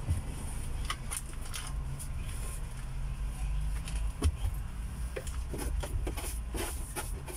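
Scattered knocks and taps as a long-handled tool is moved about and bumps inside a vehicle's cabin, the strongest about four seconds in, over a steady low rumble.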